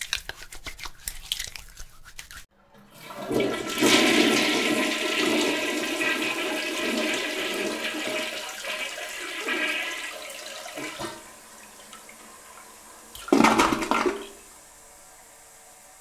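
Hands working soap into a lather with a run of wet clicks. About two and a half seconds in, a toilet flushes: a loud rush of water that peaks quickly and fades away over several seconds. A short loud burst comes near the end.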